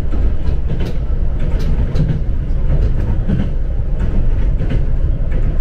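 Passenger train running, heard from inside the car: a steady low rumble of wheels on rails with faint scattered clicks from the track.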